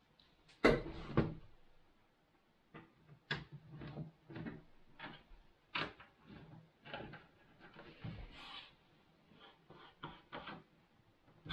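Irregular knocks, taps and clicks of hardware being handled on a desktop PC case, with two heavier thumps about a second in.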